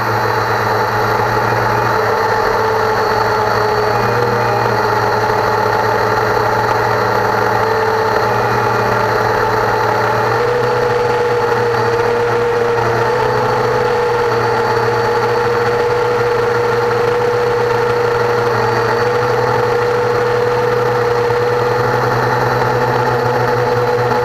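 Cheerson CX-20 quadcopter's brushless motors and propellers running steadily in flight, heard from the camera on board. The whine steps up a little in pitch about ten seconds in and holds there.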